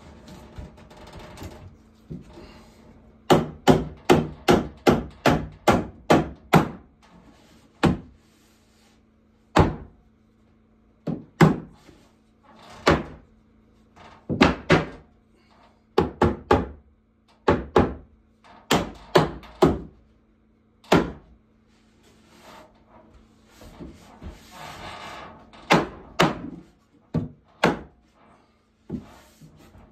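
Hammer blows on the wooden plank ceiling overhead. A quick run of about eight knocks comes a few seconds in, followed by single knocks and pairs spaced a second or two apart, with softer scraping between.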